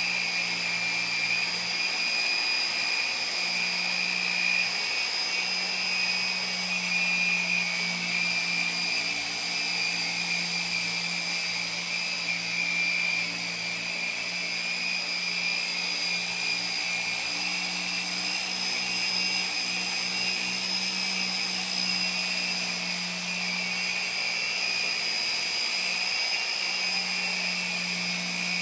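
Orbital polisher running steadily with a foam pad, buffing cutting compound into a boat's oxidized hull: a steady high whine over a low hum that wavers slightly as the hand pressure changes.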